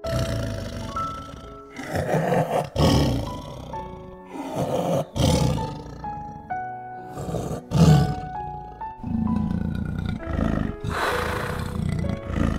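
Leopard growling: about five loud, hoarse growls, irregularly spaced a second or two apart, the loudest near the middle.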